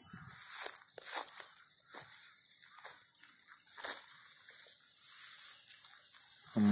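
Footsteps through tall grass, the blades swishing and rustling against the walker's legs at about one step a second.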